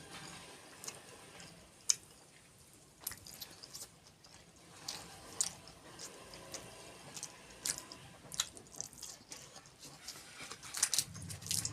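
Close-up sounds of a person eating kheer with puri: wet chewing and mouth clicks coming irregularly, several a second at times.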